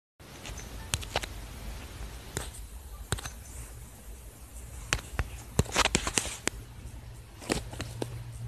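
Fireworks going off in the background: irregular sharp pops and cracks, several bunched together around the middle, over a steady low hum.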